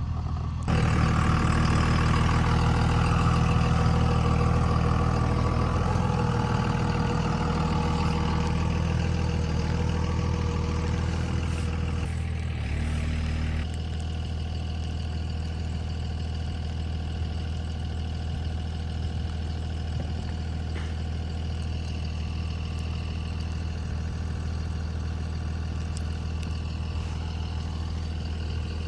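Vehicle engine running steadily. Under a second in a louder, fuller sound joins it, then falls away about halfway through, leaving the steady engine note.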